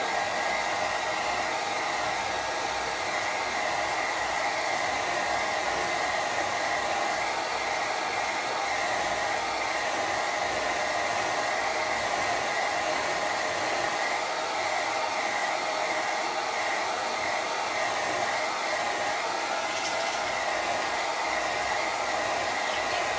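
Handheld hair dryer running steadily, blowing dust off a computer RAM module held in front of it. A constant rush of air with a steady motor whine.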